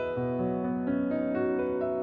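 Background music played on a keyboard: a slow melody of single notes, a new one every third to half second, over long-held low notes.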